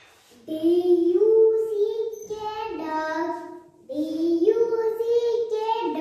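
A young child singing in a sing-song voice: two phrases of held notes that step up and down.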